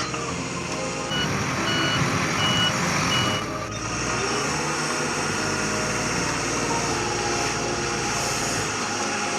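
A truck's engine running with a reversing alarm beeping four times, evenly spaced, starting about a second in. The engine noise carries on steadily after the beeps stop.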